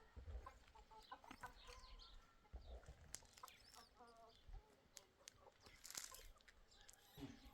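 Faint clucking of chickens, with scattered short chirps and a few sharp clicks.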